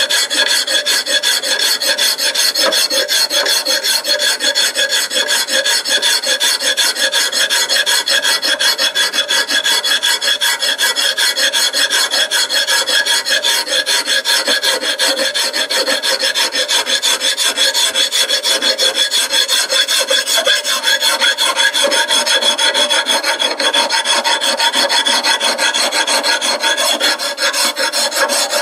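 Continuous rasping of metal being cut on a running 1946 Logan Model 200 lathe, with a fast, even rhythm and steady ringing tones from the turning work.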